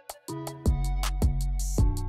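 Background music with a steady, quick ticking beat over held bass notes. It drops out briefly at the start and then comes back in.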